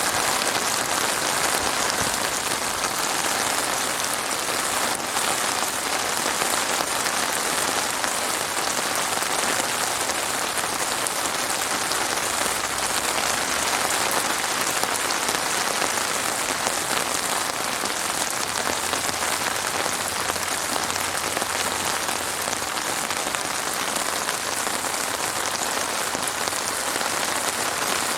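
Heavy rain falling steadily, a dense even patter of drops on a hard surface with no let-up.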